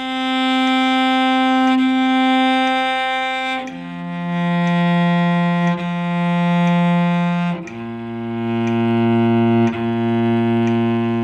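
Cello playing long, even bowed notes, a down-bow and an up-bow on each string with a bow change every two metronome clicks, stepping down from the A string to the D string and then the G string at a steady mezzo forte. A metronome ticks once a second (60 bpm).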